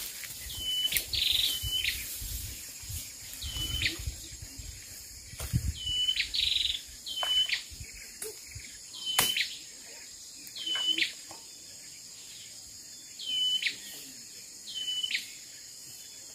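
A bird calling over and over: a short, high, whistled note that dips and then rises, about ten times, a second or two apart.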